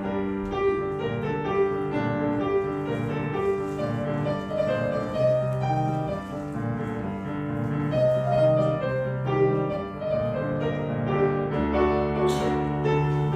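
Piano playing an instrumental interlude of a song, with no voice.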